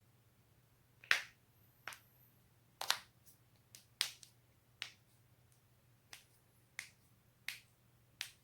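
Neck and back joints cracking: about ten sharp pops at irregular intervals, roughly one a second, some coming in quick pairs.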